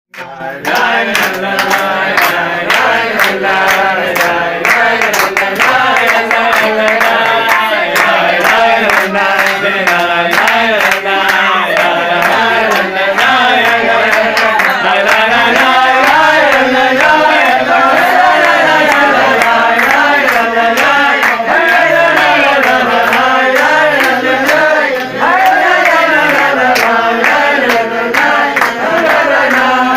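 A group of voices singing a song together, with hand-clapping in time.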